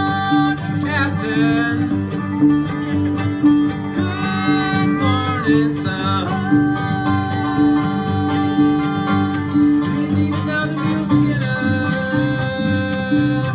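Bluegrass band playing live: upright bass, acoustic guitars and other plucked strings keep a steady beat, with a voice singing long, wavering held notes partway through.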